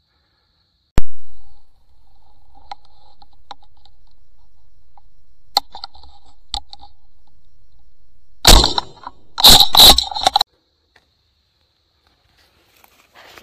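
A single shotgun shot about a second in: a sharp report that dies away over most of a second. Several seconds later come about two seconds of loud rustling and scraping through brush.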